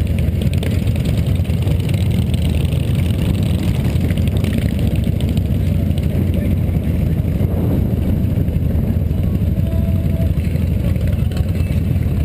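Cruiser motorcycle's engine running steadily at low revs as the bike rolls slowly, a low-pitched sound with other motorcycles' engines around it.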